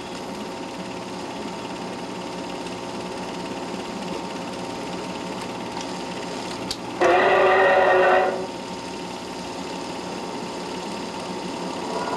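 Steady mechanical whirring with a faint hum. About seven seconds in, a louder pitched sound comes in abruptly and cuts off after about a second.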